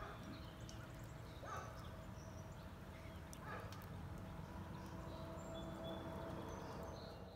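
Faint outdoor ambience: a steady low rumble with a few short bird calls and small high chirps scattered through it.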